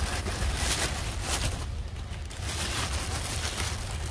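Wind buffeting the microphone in a continuous low rumble, with irregular rustling over it.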